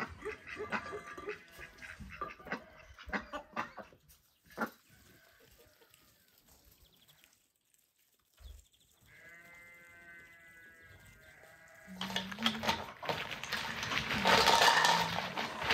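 Chickens and ducks calling over scattered clicks, then a long drawn-out animal call. About twelve seconds in, a loud dense clatter of walnuts in their shells being handled in a burlap sack and a ceramic bowl takes over.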